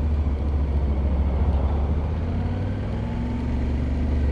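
Motorcycle riding along the road: a steady low rumble of engine and road noise, with the engine note climbing slowly from about halfway through.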